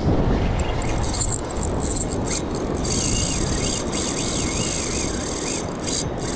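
Steady rushing noise of wind and surf on the beach. About halfway through, a high wavering whine rises and falls for a couple of seconds.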